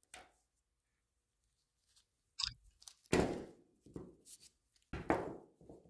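Faint handling noise: a few soft taps and rustles spread over several seconds as a lower door-hinge replacement coil spring and small hinge parts are set down and picked up on a cardboard-covered bench by gloved hands.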